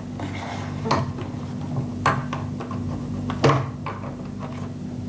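Three sharp clicks and clinks about a second apart as a vacuum tube is worked loose and pulled from its socket in an oscilloscope's preamplifier stage, the tube suspected of being defective. A steady low hum runs underneath.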